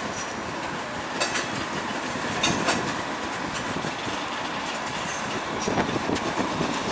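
Indian Pacific stainless-steel passenger carriages rolling slowly past: a steady rumble of wheels on rail, with pairs of sharp wheel clicks a little over a second in and about two and a half seconds in, and busier clicking near the end.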